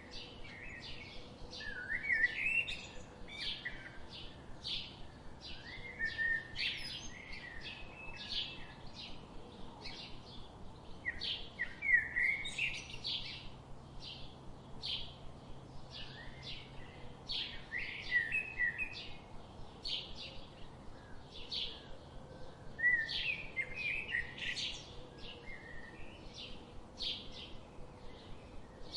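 Birds chirping and singing: a steady series of short high chirps about twice a second, with a lower warbling phrase every five or six seconds.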